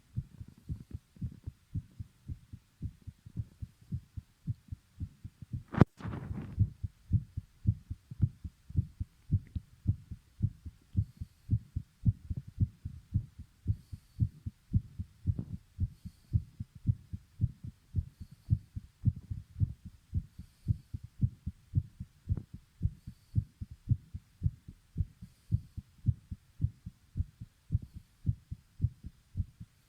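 Heartbeat pounding fast and steadily, an even run of low thumps. A single sharp click cuts in about six seconds in.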